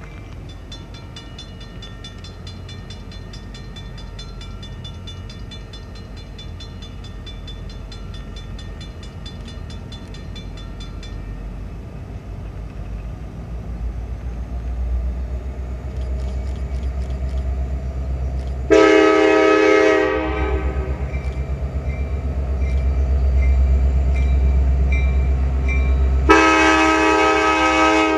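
CSX SD70MAC diesel-electric locomotive approaching and passing at the head of a freight train. Its engine rumble builds steadily, and its horn sounds twice: a short blast about two-thirds of the way in and a longer one near the end.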